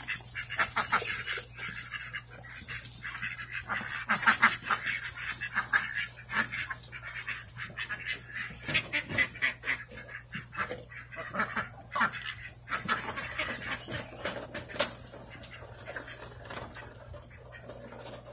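A flock of domestic ducks quacking and honking over one another in rapid, overlapping calls. The calls thin out and grow quieter near the end.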